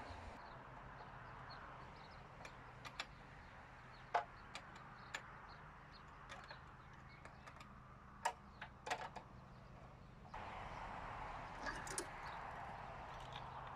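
Sporadic light clicks and knocks from a chainsaw and its loose chain being handled at a chainsaw mill, the saw not running, over a faint low hum.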